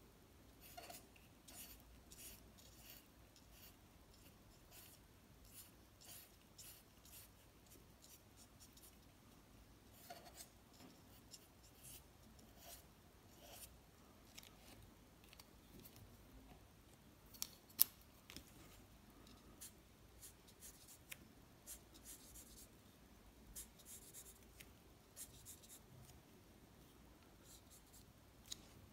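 Felt-tip markers scratching on paper in many short, quick strokes as a drawing is coloured in, faint. Two sharp clicks a little past halfway.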